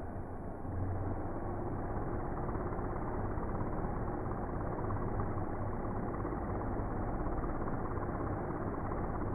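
DJI Mini 2 drone's propellers spinning, slowed down, making a steady beating sound like a helicopter. It gets a little louder just under a second in.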